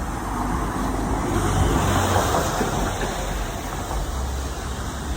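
Street traffic noise: a steady low rumble, swelling as a vehicle passes about two seconds in and easing off after.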